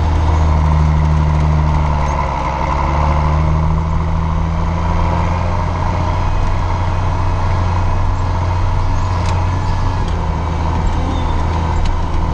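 John Deere 6510 tractor's diesel engine running steadily, heard from inside the cab, with a brief easing about two seconds in.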